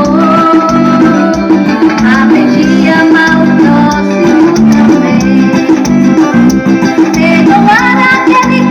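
Loud music: a singing voice over plucked guitar and a steady beat.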